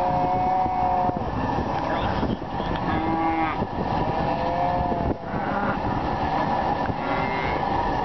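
Calves bawling several times: one long call in the first second, then shorter calls a few seconds in and near the end, over a steady background noise.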